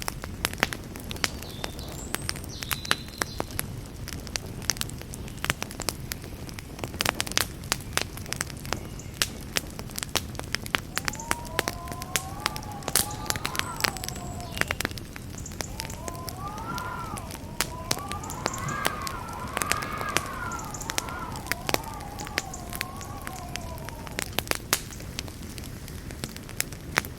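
Campfire crackling, with frequent sharp pops and snaps over the low steady rush of the flames. Twice, from about eleven seconds in and again from about sixteen seconds in, a wavering whistle rises and falls for several seconds.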